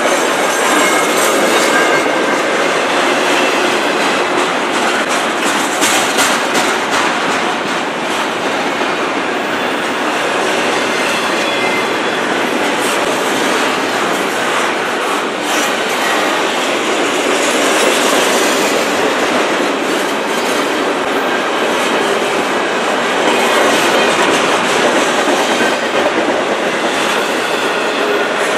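Double-stack intermodal well cars of a freight train rolling past: a steady, loud rush of steel wheels on rail, with scattered clicks as the wheels cross rail joints.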